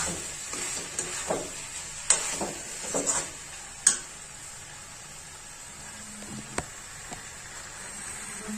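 A slotted metal spatula scraping and clinking against a metal kadhai as rice, potatoes and peas are stir-fried in spice masala, over a steady sizzle. The stirring strokes stop about four seconds in, leaving the sizzle with one more clink later on.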